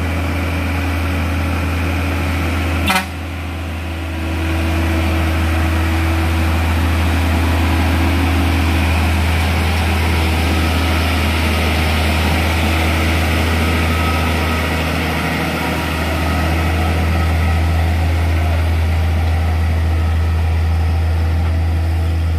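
Heavy diesel trucks' engines running as they climb a steep grade, led by a Hino Ranger dump truck passing close by: a steady low engine drone. A single sharp click comes about three seconds in.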